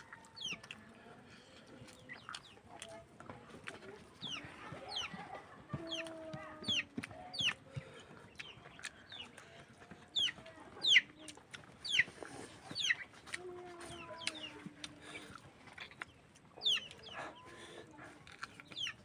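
Chickens calling: many short high chirps sliding downward, several a second, mixed with a few longer, lower drawn-out clucks.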